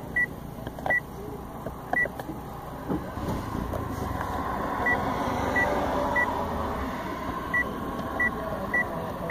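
Short high beeps from a 2015 Mitsubishi Mirage's instrument cluster, about nine at uneven spacing, sounding as the trip/display knob is pressed to step through the odometer, trip and average-fuel readings.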